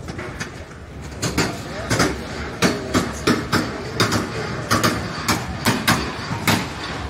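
A quick, uneven series of sharp knocks, about two to three a second and often in close pairs, starting about a second in, with voices underneath.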